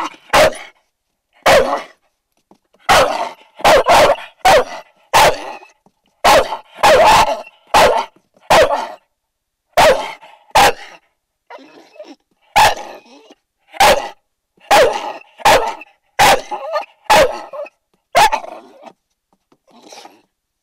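A dog barking a long run of short, sharp barks, roughly one a second and unevenly spaced, with a few quieter barks near the end.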